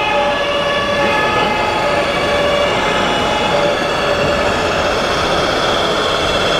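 A steady loud rumble with several sustained, horn-like tones held over it; the tones shift pitch about a second and a half in.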